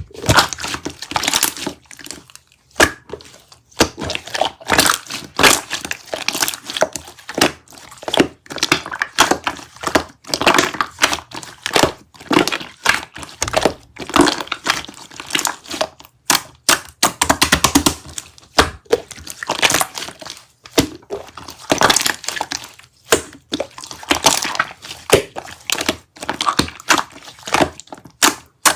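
Close-up handling noise: dense, irregular crackling and clicking with soft thuds, coming in runs separated by brief pauses.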